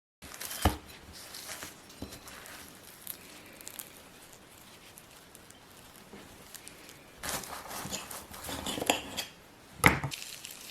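Kitchen handling sounds of food preparation: scattered rustling and scraping, with a sharp knock about half a second in and another near the end.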